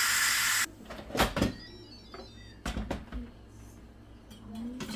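Electric pressure cooker's steam vent hissing loudly as the pressure is quick-released, cut off suddenly under a second in. A few sharp clunks and knocks follow as the lid comes off and a metal spoon goes into the pot.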